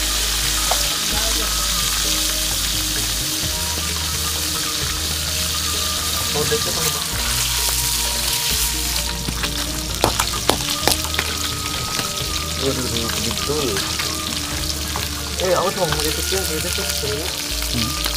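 Small fish deep-frying in hot oil in a wok, a steady loud sizzle, while a wooden stick stirs them, with a few sharp clicks about ten seconds in. Background music with a steady bass runs underneath.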